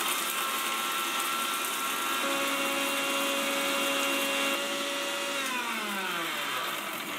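Electric mixer grinder with a small steel jar running at full speed, grinding dry roasted whole spices to a fine powder: a steady motor whine. About five and a half seconds in it is switched off, and the whine falls in pitch as the motor winds down.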